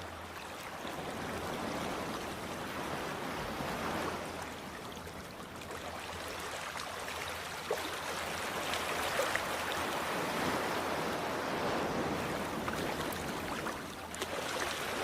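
Steady rushing water-like noise that swells and eases every few seconds, with a few faint ticks.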